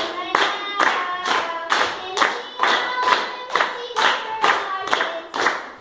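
A group clapping steadily in time, about two claps a second, with voices singing a tune along to the beat.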